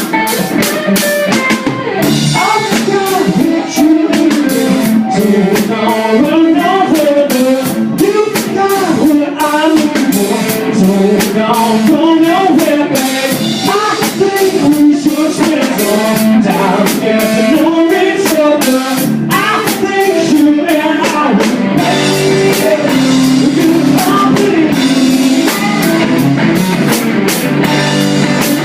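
Rock song by a band: guitar over a drum-kit beat, with a wandering melodic line.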